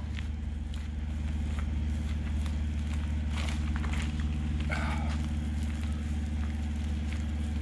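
Steady low machine hum, with faint crackling and rustling as a resin-wet fiberglass patch is rolled onto a plastic-wrapped pipe packer.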